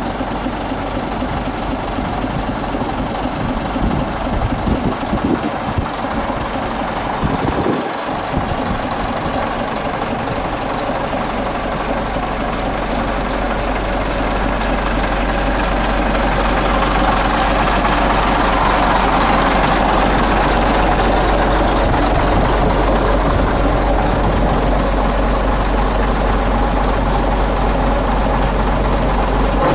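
Heavy vehicle engine idling steadily, growing louder about halfway through.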